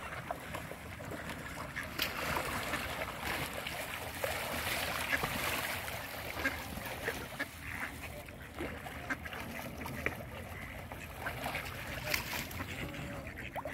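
Flock of mallard ducks on the water, with scattered quacks and small splashes as they paddle and jostle.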